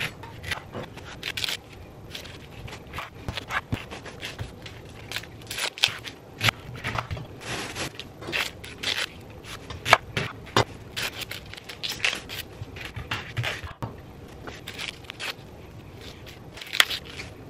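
Fresh ears of corn being trimmed and handled on a cutting board: irregular crunching, crackling and scraping of husks and cobs, with sharp knocks now and then.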